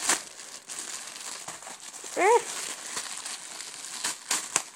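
Clear plastic packaging bag around a boxing mitt crinkling as it is handled and opened, with a few sharp crackles near the end. About halfway through, a short rising whine-like cry, the loudest sound, cuts in briefly.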